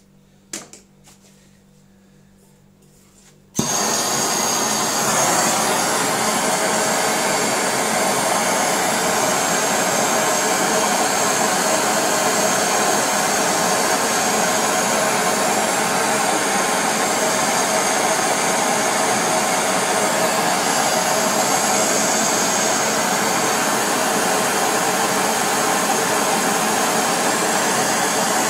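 MAPP gas hand torch lit about three and a half seconds in, then burning with a loud, steady rushing hiss as it heats a copper pipe joint for brazing. A couple of light clicks come before it.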